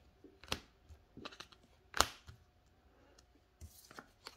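Tarot cards being handled: a few sharp clicks and taps, the loudest about two seconds in, and a short soft rustle near the end.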